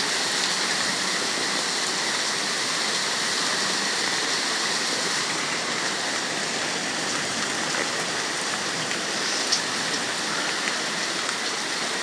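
Heavy rain pouring steadily during a thunderstorm, with one brief tap about nine and a half seconds in.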